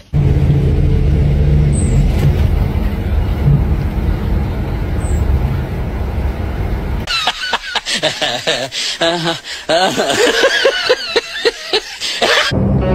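A steady low vehicle engine rumble, heard from inside a bus, for about the first seven seconds. Then comes a run of high, wavering pitched calls, and music begins near the end.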